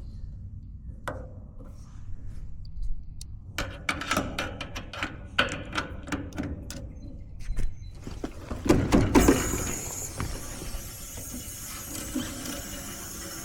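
Metal tool clicks and ratchet ticks at the heat pump's service valves, a few louder knocks, then from about 9 s in a steady hiss as the valves are opened and R454B refrigerant rushes into the line set.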